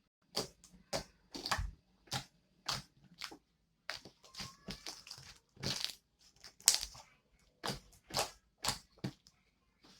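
Homemade glue slime being squeezed and worked by hand: a run of short squishing, crackling pops, about two a second.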